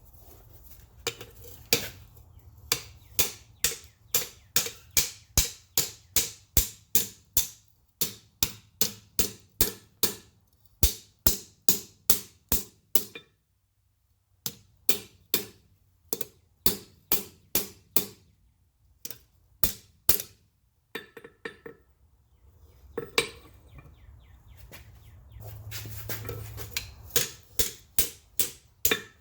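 Hammer blows on an anvil while forging a wrought iron bar: a steady run of ringing strikes about two a second, broken by a few short pauses.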